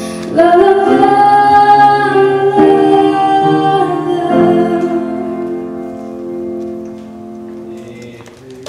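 A young woman singing the closing held notes of a song with piano accompaniment: three long notes, the last one slowly fading away near the end.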